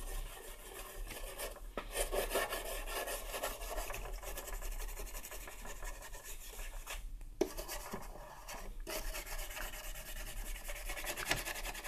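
Toothbrush bristles scrubbing fast back and forth over the plastic casing and speaker grille of a Panasonic cassette radio: a dry rubbing with two short breaks midway.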